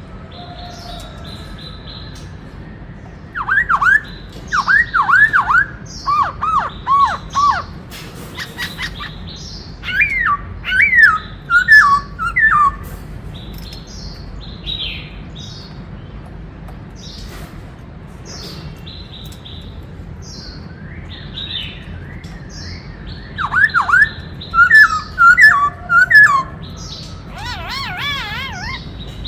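Black-throated laughingthrush (khướu bạc má) singing: loud bouts of clear, swooping whistled notes starting about four seconds in, again about ten seconds in, and again near the end, with softer high chirps in between and a wavering warble at the very end.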